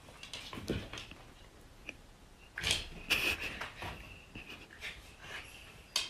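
A few short, breathy huffs and snorts from an animal, the loudest pair coming about two and a half to three and a half seconds in.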